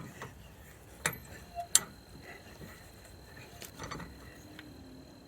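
Sharp metallic clinks of a tire iron on the wheel's lug nuts as they are snugged down: two loud clinks a little after a second in, then a few lighter clicks near four seconds.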